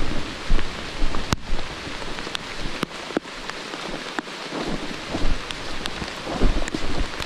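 Steady hiss of rain falling on dense forest foliage, with scattered sharp ticks of drops striking close to the microphone and uneven low rumbling from wind or handling on the microphone.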